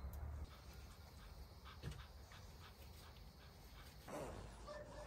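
Faint, mostly quiet background with a few light ticks, then a short whining call from a pet animal about four seconds in.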